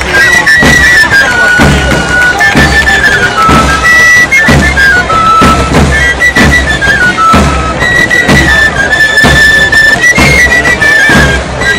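Pipe-and-tabor players (tamborileros) playing sevillanas: three-hole pipes carrying a high, stepping melody over tabor drums, each beaten with a single stick in a steady, even rhythm.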